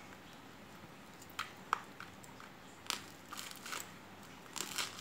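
Small blade of a red pocket multi-tool knife picking and scraping at packing tape on a tape-wrapped parcel: a few short, faint crunches and scrapes, spaced unevenly.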